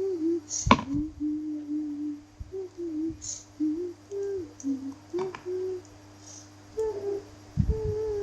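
A person humming a wandering tune in short notes over a steady low hum, with a few sharp clicks about a second in, around five seconds in and just after the end.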